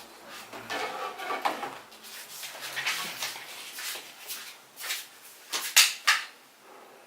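Handling noises: rustling, clatter and a few sharp clicks and knocks, the sharpest two close together about six seconds in.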